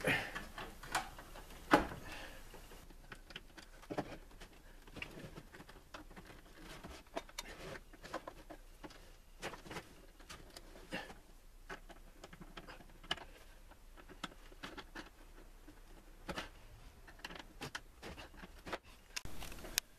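Irregular small clicks and taps of a screwdriver and wires being worked into the breaker and bus-bar terminal screws of a WFCO 8955 power center, with one sharper click about two seconds in.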